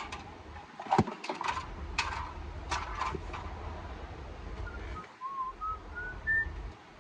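Several light clicks and knocks of parts being handled in the first half, then a person whistles a few short notes that step upward in pitch, about five seconds in.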